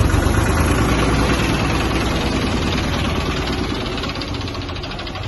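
Mobile crane's diesel engine running steadily at a low rumble while it lowers a load, easing off slightly near the end.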